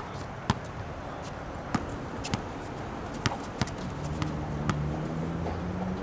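Basketball bouncing on an outdoor hard court as a player dribbles, a handful of sharp, irregularly spaced bounces. From about four seconds in a steady low hum comes in beneath them.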